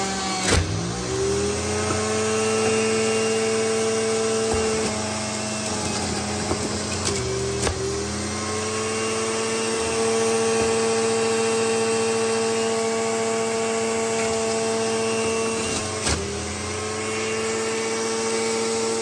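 Centrifugal juicer motor running steadily with a pitched whine. Three times, about half a second, seven and a half and sixteen seconds in, the pitch drops sharply with a click and climbs back over a second or so, the motor slowing under the load of celery, greens and lemon fed into the spinning basket.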